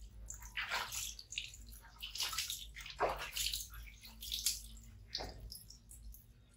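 Water splashing and dripping into a plastic basin as a baby monkey is washed by hand, with water scooped over it and running off its fur. There are several irregular splashes.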